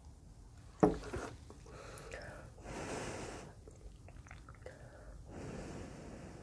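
Close-miked eating of spicy ramen noodles with dumplings and fishballs: a sharp mouth smack or click about a second in, then chewing with two longer airy sounds, one around three seconds in and one near the end.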